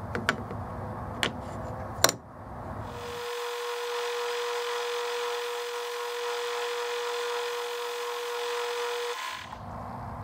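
A few sharp metallic clicks and knocks, the loudest about two seconds in, then a 12-inch Atlas metal lathe runs with a steady whine for about six seconds while a tool cuts the face of an aluminium arbor, stopping a little before the end.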